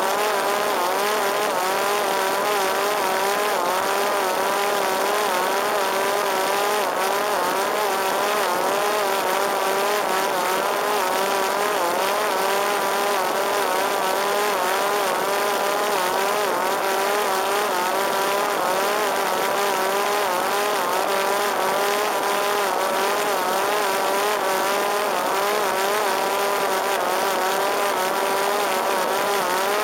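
Parrot Disco fixed-wing drone's electric motor and rear propeller, heard from on board: a steady, high whine whose pitch wavers slightly up and down, over a constant hiss.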